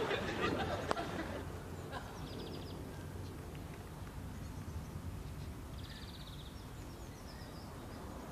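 Quiet open-air ambience with two short high trills of birdsong, and a single sharp knock about a second in. The tail of studio-audience laughter fades over the first second.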